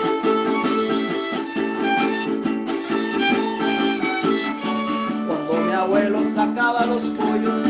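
Instrumental introduction of a Mexican folk song: strummed guitar-family instruments keep a steady rhythm under a violin melody, with sliding notes about five seconds in.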